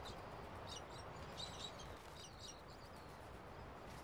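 Faint bird chirps: a handful of short, high calls from about a second in, over steady faint background noise.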